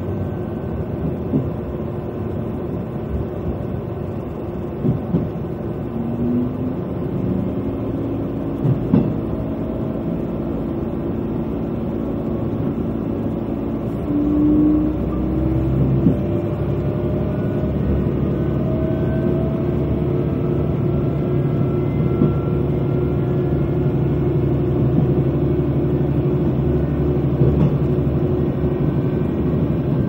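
KiHa 120 diesel railcar running along the line: its diesel engine drones over the rumble of the wheels on the rails, with a few knocks early on. About halfway through it gets louder and the engine note rises as it takes more power.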